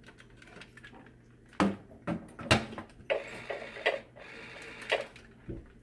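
A series of sharp clicks and knocks, irregularly spaced, from something being handled and opened by hand. The loudest knock comes about halfway through, after a quiet first second.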